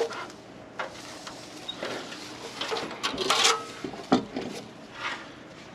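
Hands handling the parts of a light-pole fixture, a few irregular knocks and clunks with a longer scrape about three seconds in and the sharpest knock just after it.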